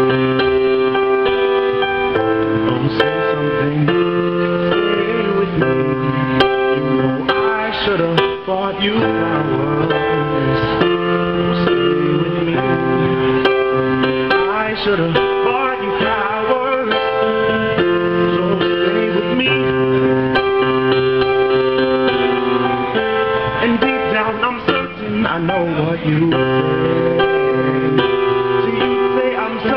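A man singing a slow pop ballad to chords played on a digital keyboard. The chords are held and change every second or two.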